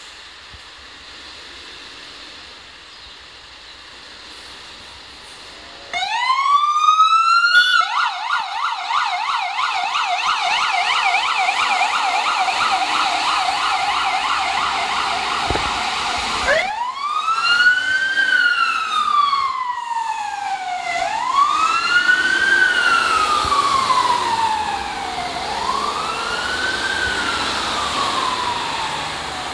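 Fire engine siren. After about six quiet seconds it starts with a rising wail, then switches to a fast warble, and from about halfway through it changes to a slow wail that rises and falls every few seconds.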